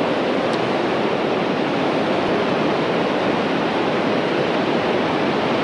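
Whitewater rapids of the Chattooga River rushing: a steady, even wash of churning water close by.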